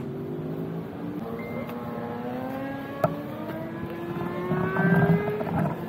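Sport motorcycle engine running, its pitch climbing slowly and steadily as the revs rise. There is one sharp click about three seconds in.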